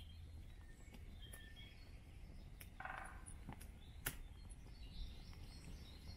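Quiet woodland background with faint, scattered bird chirps, a low steady rumble and a few sharp clicks, one of them about four seconds in.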